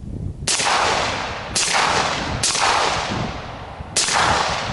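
Suppressed 11.5-inch AR-style carbine firing four shots at uneven spacing, each crack trailing off in a long, fading echo.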